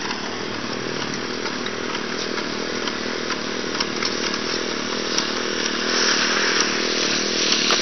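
A power tool's small engine running steadily at speed, growing louder about six seconds in.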